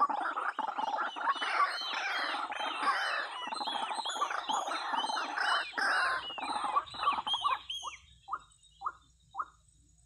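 White-breasted waterhens calling: a dense chorus of harsh, croaking calls that turns into a run of repeated arched notes, about three a second, then slows into a few single notes and stops near the end.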